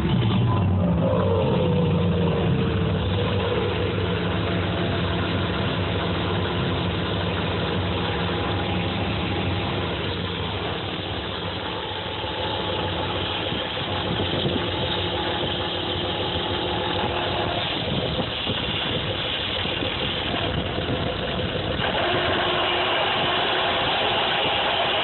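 2003 Dodge Ram pickup's engine running at idle. It settles from a higher idle in the first few seconds, then runs steadily with thin steady whining tones over the engine note. The owner takes the noise for a bad alternator.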